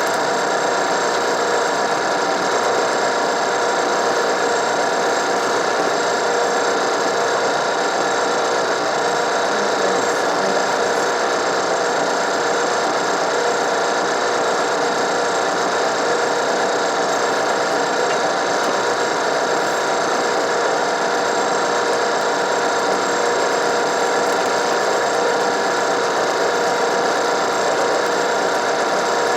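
Ridgid K-50 sectional drain machine's motor running steadily, its cable turning in a drain blocked with ice that it cannot cut through.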